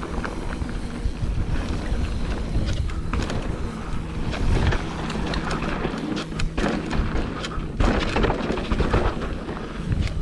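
Wind buffeting a helmet camera's microphone as a mountain bike rolls over a dirt trail, with a continuous rumble and scattered rattles and clicks from the tyres and bike.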